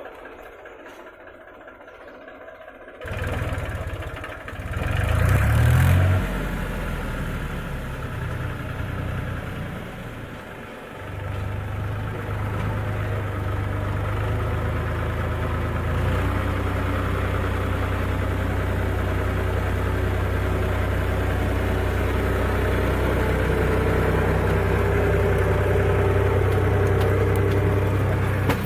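Diesel engine of a JCB 3DX backhoe loader running. It is low for the first few seconds, revs up about four to six seconds in, eases off around ten seconds, then runs steadily.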